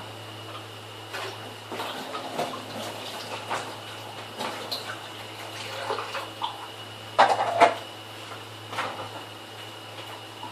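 Washing dishes at a kitchen sink: irregular clinks and knocks of dishes against each other and the sink, with running or splashing water. Two louder clatters come about seven seconds in, over a steady low hum.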